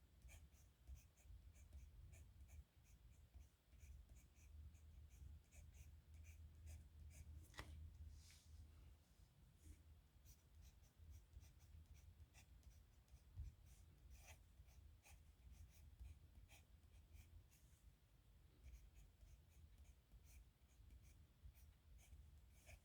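Pen nib scratching across paper in many short, quick strokes, as in handwriting a signature, faint, over a low steady hum.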